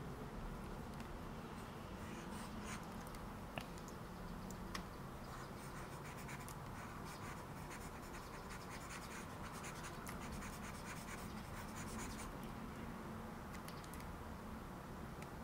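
Faint scratching of a pen stylus moving over a graphics tablet as sculpting strokes are drawn, with a few light clicks, over a steady low hum.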